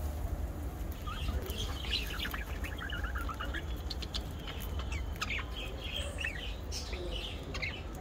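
Budgerigars chirping and chattering: many quick high chirps and short rapid runs of notes, with a few sharp clicks among them, over a steady low hum.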